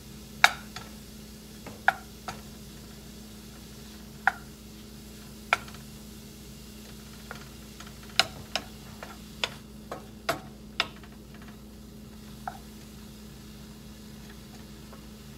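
Wooden spoon clicking and knocking against a ceramic-lined skillet as mushrooms are stirred, in irregular sharp taps over a faint steady sizzle as the mushrooms cook off their moisture.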